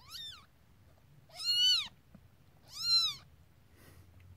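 Newborn kitten mewing three times in high-pitched cries: a short falling one, then two longer, louder ones that rise and fall in pitch.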